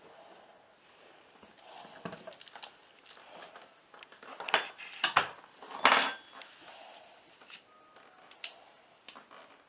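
Metal objects clinking and knocking as they are handled, with a few light taps at first and three louder knocks about four and a half to six seconds in.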